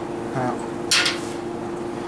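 A steady mechanical hum, with a short voice-like murmur about half a second in and a brief sharp hiss just after a second in.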